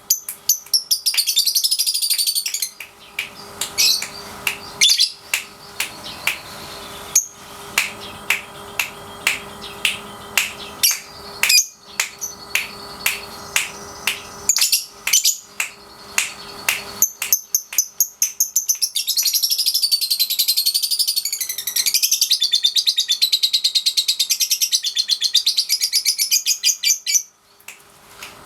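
Young lovebird, about three and a half months old, singing its 'ngekek' song. It gives runs of sharp, high, repeated chirps and long high warbling trills, one short near the start and a longer one through much of the second half: the bird is learning to draw out the long trill.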